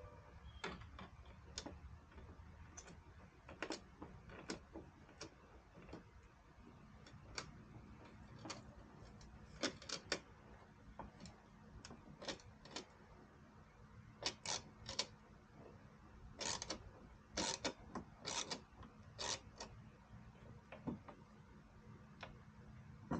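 Irregular clicks, taps and rattles of hard plastic parts being handled and pressed into place as an LED fender light is fitted into a Jeep's fender, coming more often in the second half.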